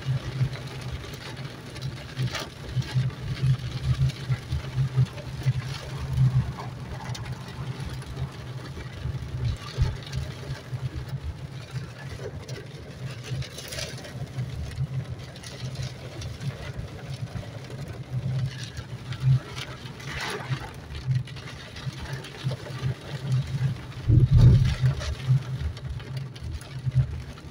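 Car cabin noise while driving through heavy rain: a low, uneven engine and road rumble with rain on the windshield, and a few brief louder surges.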